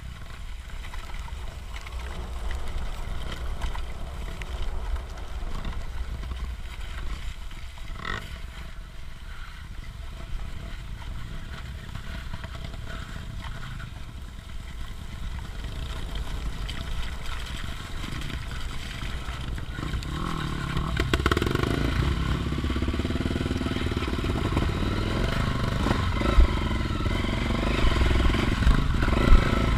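Off-road motorcycle engine running on a trail, getting louder about two-thirds of the way through.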